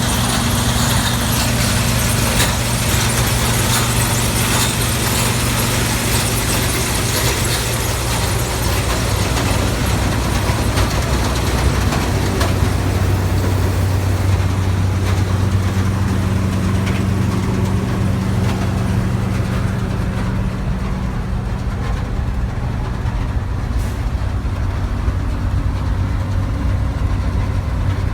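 New Holland TX68 combine harvester's Iveco 9.6-litre turbocharged six-cylinder diesel running steadily at idle. Its low note shifts slightly about halfway through, and the high hiss fades in the last third.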